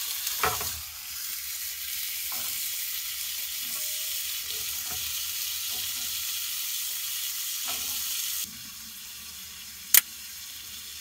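Sliced double smoked sausage sizzling and frying in a cast iron skillet over a small wood fire, with a few light knocks. The sizzle turns suddenly quieter about eight and a half seconds in, and a single sharp, loud click comes near the end.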